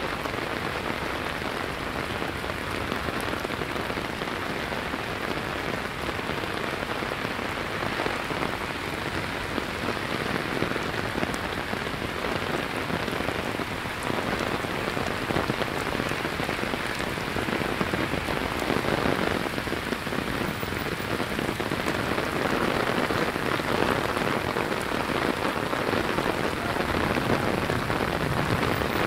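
Heavy rain pouring down in a steady, dense hiss of drops on hard surfaces, growing a little louder about halfway through.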